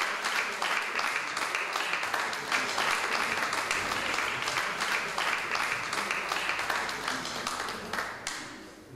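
Audience applauding with dense, steady clapping that dies down near the end.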